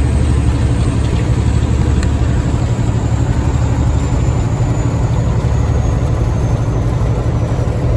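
Semi-truck cab while driving: the steady low drone of the diesel engine and road noise.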